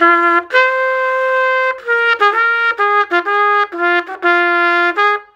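Solo trumpet playing a short phrase of about ten separate notes. A long held note comes early, quicker notes of changing pitch follow, and it ends on a long lower note.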